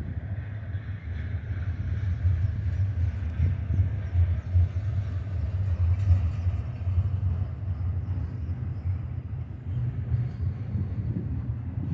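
Loaded double-stack intermodal well cars rolling past on the main line: a steady low rumble of steel wheels on rail.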